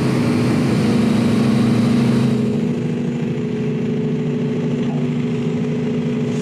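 Volvo EC220E excavator's diesel engine running steadily, heard from inside the cab as a constant hum; a higher hiss over it eases off a little over two seconds in.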